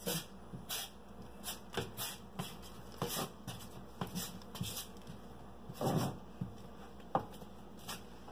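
Notched trowel scraping as tile adhesive is combed out across the wall: a dozen or so short, uneven scrapes, one stronger and fuller about six seconds in.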